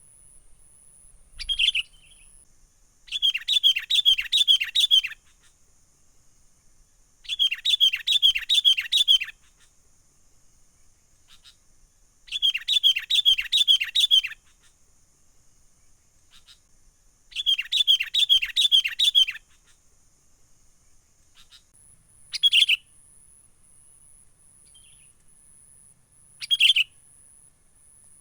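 Sooty-headed bulbul (kutilang) calling: four bursts of rapid, bubbly chirping notes, each about two seconds long and a few seconds apart, with three short single calls between them.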